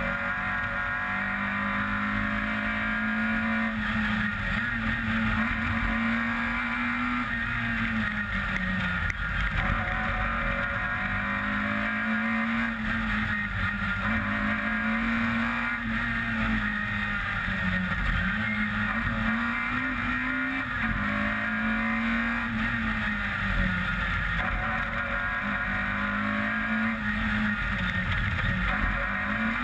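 Peugeot 106 rally car's engine heard from on board, pulling hard through the revs and dropping back at each gear change, over and over, with road and wind noise underneath.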